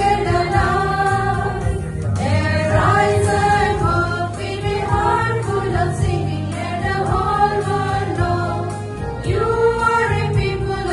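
Choral music: a choir singing slow, held notes over a steady low accompaniment.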